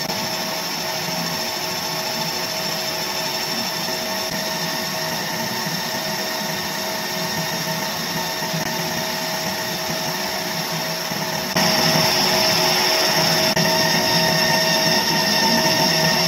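ComMarker B4 fiber laser engraver raster-marking a photo into a black metal card: a steady, drill-like whine made of several held tones. It steps up in loudness about eleven and a half seconds in.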